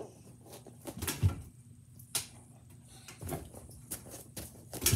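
Scattered knocks and thumps from a child jumping onto and swinging around a home gymnastics bar, with one heavier thump about a second in and a sharp knock near the end.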